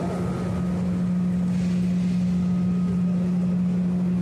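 Steady machine hum with one constant low tone, holding level throughout. A faint hiss swells briefly about halfway through.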